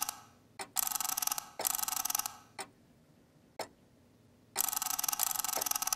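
Title-sequence sound effect built on a ticking clock: sharp ticks about once a second, most followed by a short, bright hissing burst, with a longer burst starting about three-quarters of the way through.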